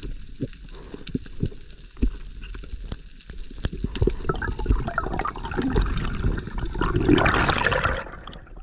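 Muffled underwater sound heard through an action camera's housing while diving: scattered sharp clicks over a low rumble of water. A louder rush of water builds in the second half and cuts off abruptly near the end.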